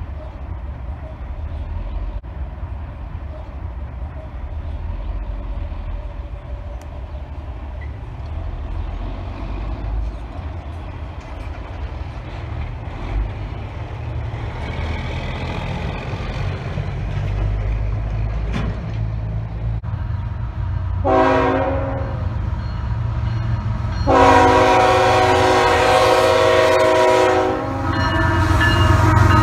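Freight train's lead diesel locomotive, a GE ES44AC, sounding its horn for a grade crossing. A faint blast comes around the middle, then a short blast, then a loud long blast. Near the end the locomotive's engine rumble swells as it reaches the crossing.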